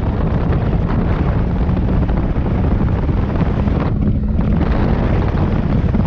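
Heavy wind buffeting on the microphone of a moving motorcycle, with the engine's steady running underneath.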